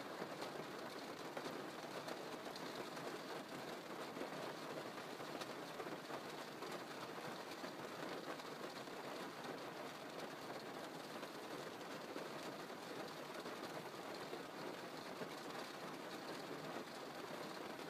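Steady rain drumming on a car's roof and windows, heard from inside the car: a dense patter of many small drops.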